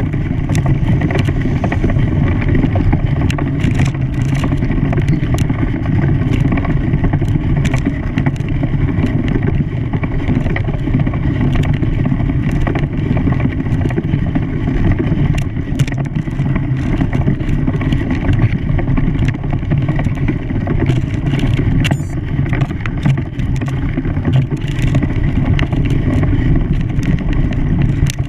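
Steady low rumble of a running engine, with many brief clicks over it.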